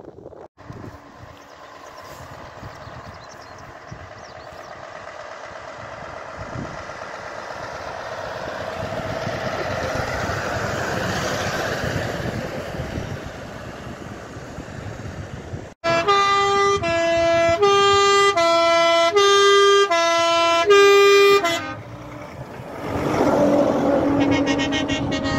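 Show trucks passing one after another. First a Scania tractor unit drives by, its engine and tyres rising to a peak and fading. Then, loudest, a musical multi-note air horn plays a short tune of changing notes for about six seconds. Near the end a red DAF tractor unit passes with a steady tone.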